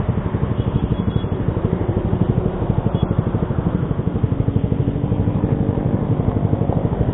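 Yamaha R15 V3's single-cylinder engine running at low, steady revs through an SC Project aftermarket exhaust with a dB killer fitted, a fast, even exhaust pulsing.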